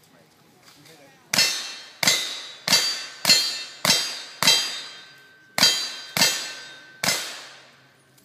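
A string of nine gunshots about six-tenths of a second apart, starting about a second and a half in, each followed by the clang of a steel target ringing on. A slightly longer pause falls after the sixth shot.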